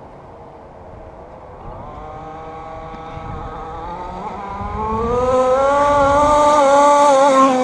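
FG Modellsport 1/5-scale RC car's two-stroke gasoline engine running, faint at first, then rising in pitch and growing steadily louder as the car accelerates and approaches, loudest near the end.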